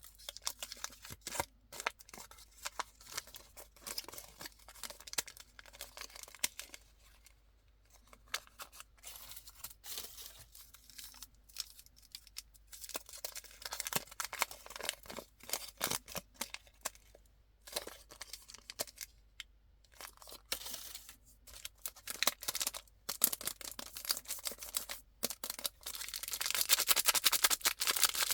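Candy wrappers being handled and torn open: irregular bursts of crinkling and tearing packaging with sharp crackles, densest and loudest near the end.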